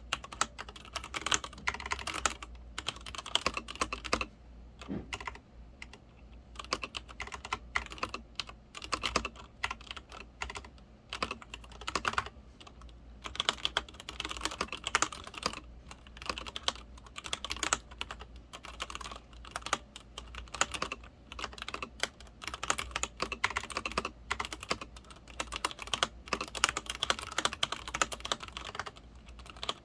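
Continuous typing on a Leopold FC900R-PD full-size mechanical keyboard with Cherry MX Red linear switches: a fast, irregular stream of key clacks with brief pauses between bursts.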